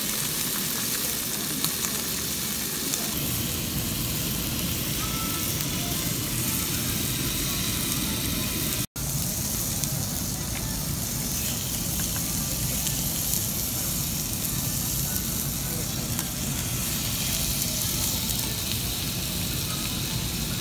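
Steady sizzling and bubbling of a stew boiling hard in a black pot, then, after a sudden cut about nine seconds in, slabs of beef sizzling on a tabletop grill.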